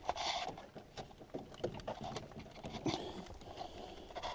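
Light plastic clicks and rustling as the clip on a door's window-switch wiring connector is pressed down and the plug is worked loose.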